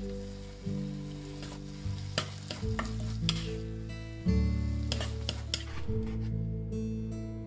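Food stir-frying in a pan, sizzling, with a spatula scraping and clicking against the pan at irregular moments, over background music.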